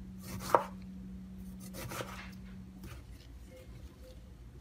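Knife slicing a lime into wedges on a cutting board: a sharp knock of the blade against the board about half a second in, and another cutting stroke about two seconds in. A low steady hum stops about three seconds in.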